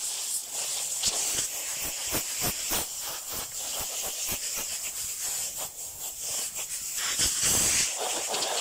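Compressed-air blow gun hissing in short, stop-start blasts as it blows dust out of a large cylindrical paper air filter element, with a longer, louder blast near the end.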